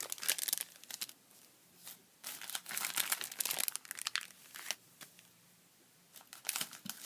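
Plastic packaging of sticker sheets crinkling as it is handled, in three bursts with quiet gaps between them.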